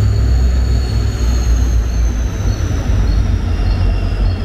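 Mumbai suburban electric local train (EMU) standing at the platform, its equipment giving a steady low hum with a thin high whine slowly falling in pitch.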